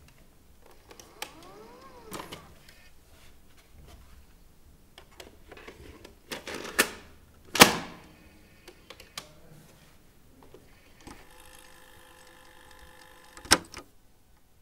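A videocassette recorder being loaded and started: scattered plastic clicks and clunks, the loudest just past halfway. Then a motor whirs for a couple of seconds as the tape threads, ending in a sharp click.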